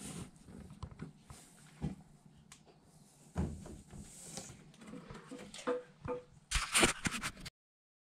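Small taps and rustles as a 2½-week-old British Shorthair kitten shuffles on a tiled floor and paws at a feather toy. A louder burst of rustling comes near the end, then the sound cuts off.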